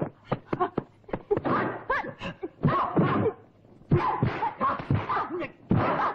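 Kung fu film fight sound: a rapid run of punch and kick impact effects mixed with the fighters' short shouts and yells, with a brief lull a little past halfway.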